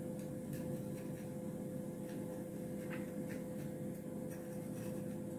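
Steady hum of a microwave oven running, with a few faint knife taps on a wooden chopping board as a pepper is trimmed.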